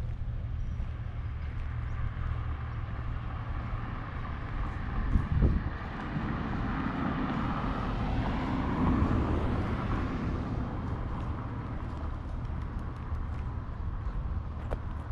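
Road traffic under a steady low rumble, with one vehicle passing: it grows louder from about six seconds in and fades away by about eleven seconds.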